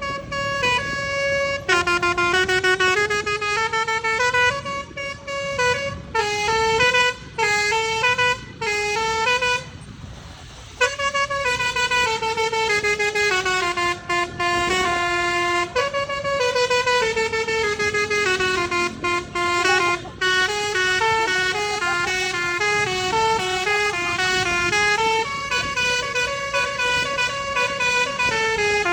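Bus 'telolet' horn, a multi-tone musical air horn, playing a long tune of quickly stepping notes. It breaks off briefly about ten seconds in, then the tune resumes.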